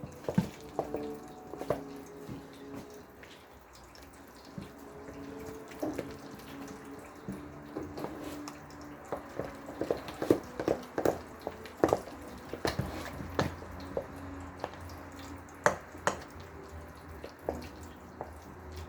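Potatoes being mashed by hand with milk: a potato masher squelching through the wet mash, with irregular clicks and knocks against the pot, busiest in the middle.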